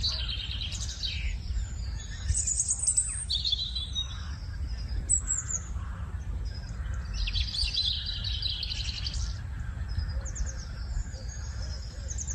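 Several small birds chirping and twittering in quick, high trills, busiest a couple of seconds in and again past the middle, over a steady low rumble.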